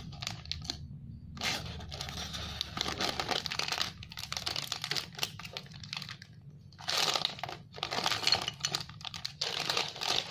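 Thin clear plastic polybag crinkling and tearing as it is handled and opened to get at small plastic minifigure parts, in irregular crackly bursts with short pauses.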